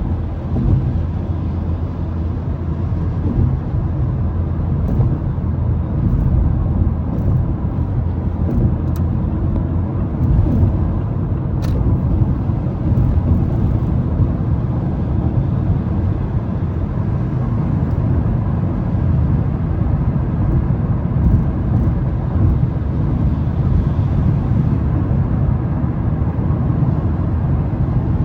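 Mazda 3 driving at highway speed on a wet road: a steady low rumble of tyre and road noise.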